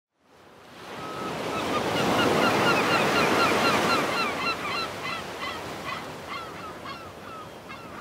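Ocean surf washing on the shore, fading in from silence, with many short, falling bird calls repeating over it, about two or three a second. The calls are loudest in the first half and thin out toward the end.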